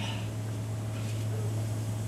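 Room tone: a steady low electrical hum with a few faint, brief rustles.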